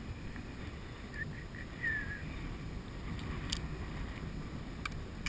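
Wind rumbling on the microphone, with a few faint sharp clicks of the shotgun being loaded with a cracker shell, and a short high falling chirp about two seconds in.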